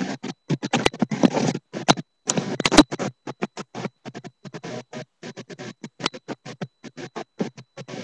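Background music, heavily broken up by the recording: the sound cuts in and out several times a second, with a few louder crackles about two to three seconds in.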